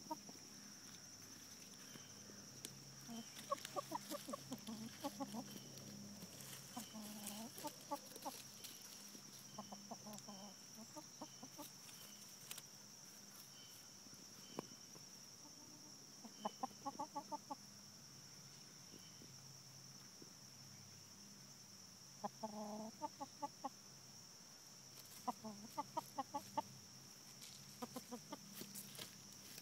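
Backyard hens clucking in about seven short runs of quick clucks, with gaps of a few seconds between them.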